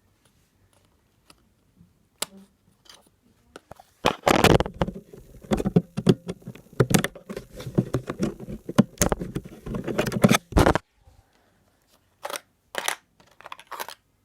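Hard plastic parts of an old laptop being handled during repair work. There is a dense run of clicks and scraping from about four seconds in until nearly eleven, then a few separate clicks near the end.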